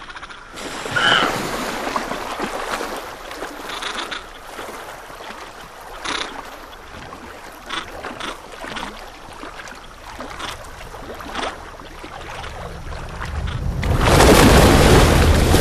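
Water splashing as a young azhdarchid pterosaur flounders in a lake, with a short call about a second in and scattered splashes. Near the end comes a loud, heavy splash as a Shamosuchus lunges out of the water at it.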